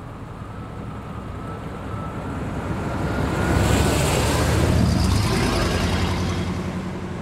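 Pickup truck driving over and past at road level: engine and tyre noise grows to a peak about four seconds in as it passes overhead, then fades as it drives away.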